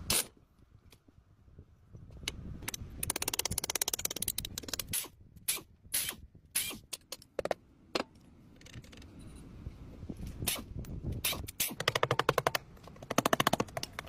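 Bursts of rapid rattling impacts lasting about a second or two each, mixed with single sharp knocks, typical of a workshop tool working on metal.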